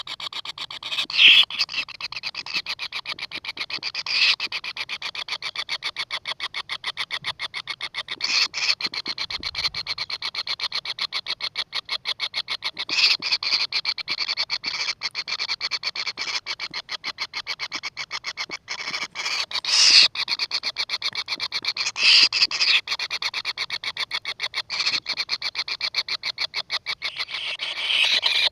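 Kingfisher nestlings giving begging calls: a continuous rapid, high-pitched ticking rattle, with louder squealing bursts every few seconds.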